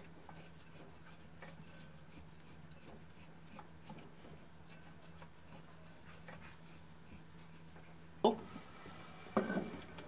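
Faint ticks and small knocks from the metal parts of a cut-open scroll compressor being turned and handled by hand, with two louder knocks about eight and nine and a half seconds in. A faint steady hum lies underneath.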